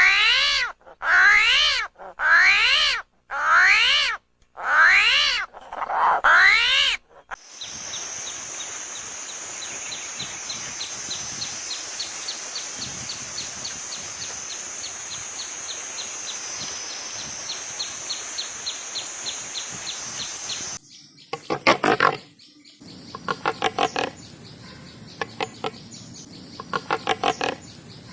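A sequence of animal sounds: about six loud wavering calls, one roughly every second, then a long steady high-pitched buzz with quick regular ticks, then short bursts of calls.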